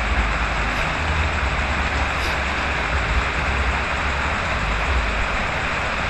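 Noisy rain: a steady, loud hiss with a low rumble underneath.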